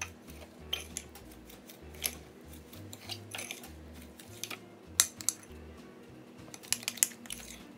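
A metal spoon clinking and scraping against a small glass bowl while butter and powdered sugar are stirred into a paste: irregular sharp clinks, the loudest pair about five seconds in. Soft background music runs underneath.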